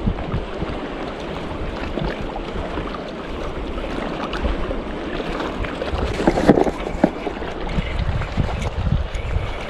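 Wind buffeting the microphone with a steady low rumble, over the wash of shallow sea water on a reef. About two thirds of the way in there is a short burst of clicks and rattling, the loudest moment.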